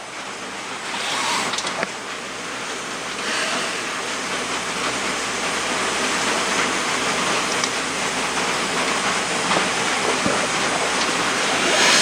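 Steady hiss of compressed air driving a homemade smoke machine, a paint can of baby oil heated by a diesel glow plug, as it pumps smoke into the carburettor in a smoke test for vacuum leaks.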